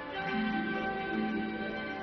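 Film score music: a soft passage of long held notes, with a low note coming in just after the start.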